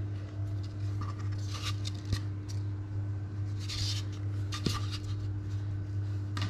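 Nylon fishing line being handled and knotted by hand: soft rustling and rubbing with a few light clicks, over a steady low hum.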